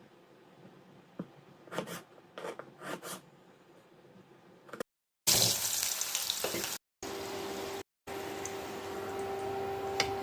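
A few light clicks and taps of a utensil against cookware, then, after a cut about five seconds in, Malabar spinach sizzling as it fries in a pan, with a steady hum underneath.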